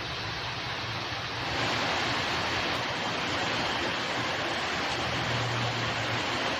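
Heavy rain pouring down in a thunderstorm: a steady rushing hiss that grows louder about a second and a half in.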